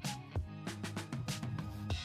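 Background music with a steady drum beat and a sustained bass line.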